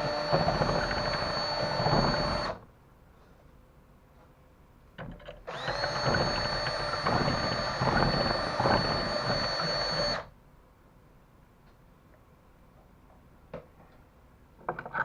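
Handheld electric power tool running in two bursts: it cuts off about two and a half seconds in, then spins back up with a rising whine and runs steadily for about four and a half seconds before stopping. A few light clicks and taps fall in the pauses.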